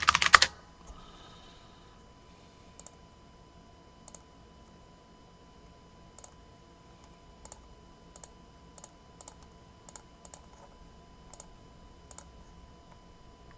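A brief louder noise right at the start, then faint light clicks, about a dozen, at irregular intervals.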